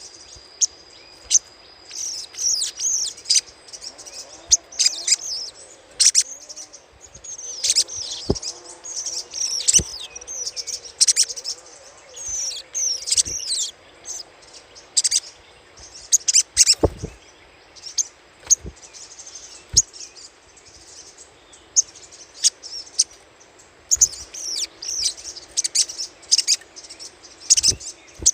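Sogok ontong (sogon) giving its rapid, high chattering 'crecetan' calls in bursts of a second or two, again and again, with a few sharp clicks between them. This is a lure recording played to prompt caged birds of the same kind to call.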